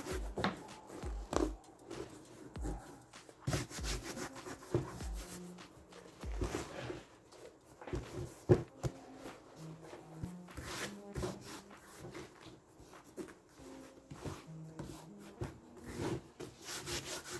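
Fabric being pulled and rubbed down by hand onto a glued speaker box: irregular rubbing and rustling with scattered light knocks.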